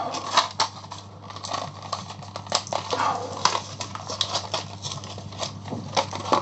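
Irregular small clicks and taps as a new CR2032 coin cell battery is taken out of its pack and handled with the key fob's plastic parts.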